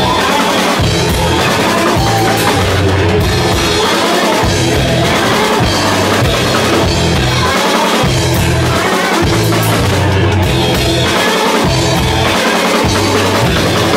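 A rock band playing loud and live: a drum kit with cymbal crashes, electric guitars and a repeating bass riff that breaks off briefly now and then.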